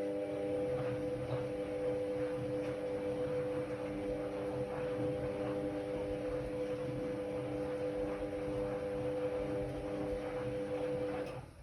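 Ariston Margherita 2000 AL 108 D washer-dryer's motor turning the drum during a wash cycle: a steady hum with a few steady tones over a low rumble, which cuts off near the end as the drum stops.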